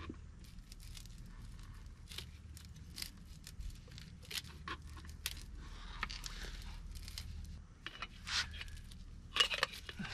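Seal puller tool prying and scraping at the old greasy oil seal inside a truck's front wheel hub: repeated short metal scrapes and clicks, irregular, with a louder cluster near the end.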